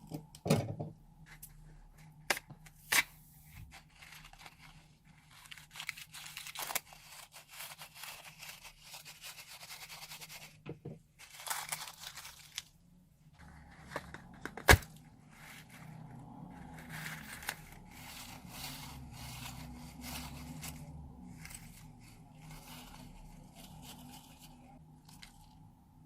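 Slime being squished, stretched and folded by hand: sticky crackling textures broken by sharp popping clicks, one loud pop about halfway through.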